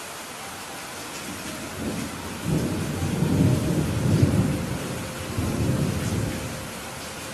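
Thunder rumbling over steady heavy rain. The rumble builds about two seconds in, peaks in the middle, swells once more and dies away near the end, while the rain keeps up an even hiss.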